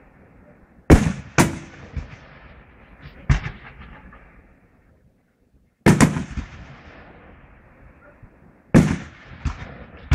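Fireworks shells bursting in a display: a series of sharp bangs, some in quick pairs, each trailing off in an echoing rumble, with a short quiet pause about halfway through.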